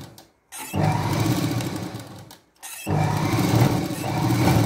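Sewing machine driven by a belt from an add-on electric motor, running in two bursts of about two seconds each with a short stop between, starting and stopping as its foot pedal speed control is pressed and released.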